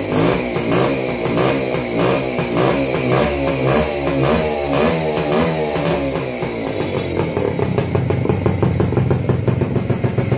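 Minsk motorcycle's single-cylinder two-stroke engine, freshly rebuilt, revved in quick repeated blips that rise and fall, then settling to a steady idle about seven seconds in.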